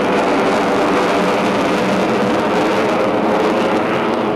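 Jet engine noise of an F-22 Raptor fighter in flight, its twin Pratt & Whitney F119 turbofans making a loud, steady rushing sound.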